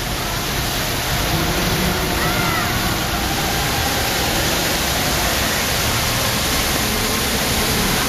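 Trafalgar Square fountain's jets splashing steadily into the stone basin: a constant, even wash of falling water.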